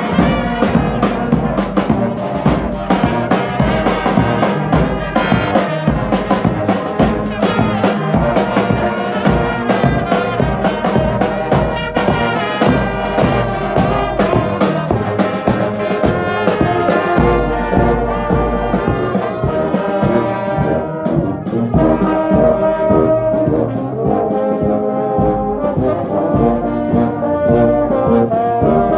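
Marching brass band playing a tune on the move: trombones, trumpets and tubas over a steady bass drum beat.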